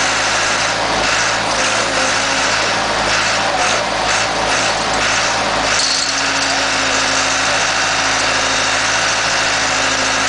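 Horizontal mobile scrap-metal baler's engine running steadily at a constant speed. From about a second in until about six seconds in, an irregular rattling noise rises over the engine, then dies away.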